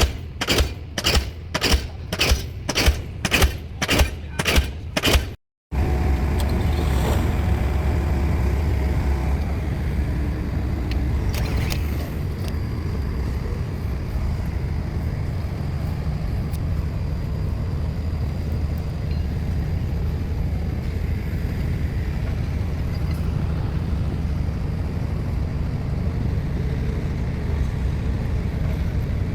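Diesel pile-driving hammer striking a pile at a steady pace, about two blows a second, run at low throttle so that the pile does not slide. After a cut about five seconds in, a heavy diesel engine runs steadily with no hammer blows.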